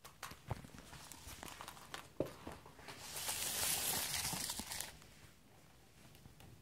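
A run of light taps and knocks, then about two seconds of loud rustling and scraping. This is handling noise from the camera being moved down to floor level while a kitten plays on the wooden floor.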